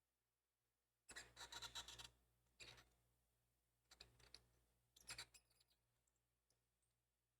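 Faint crackling and sizzling in four short spells, the longest and loudest about a second in: a soldering iron held in flux on thin insulated copper wire, burning the coating off and tinning the wire with solder.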